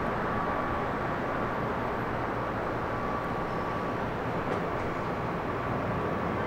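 Steady background drone inside a concrete parking garage: an even low rumble with a faint, steady high hum running over it.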